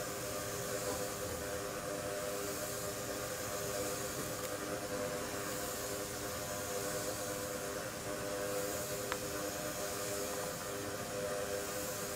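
Steady hiss of compressed air from the pneumatic drive of a soft robotic elephant-trunk arm, swelling and easing every few seconds as the trunk sways, over a constant hum of several pitches. A single faint click about nine seconds in.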